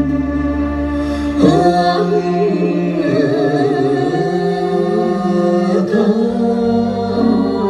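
Vietnamese Ví Giặm folk song from Nghệ: a voice holds long, wavering notes over musical accompaniment, with a new phrase starting about a second and a half in.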